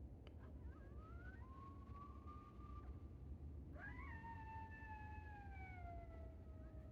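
Faint coyote howls: one long howl that rises to a held note, then a second howl about four seconds in that starts higher and slides slowly downward.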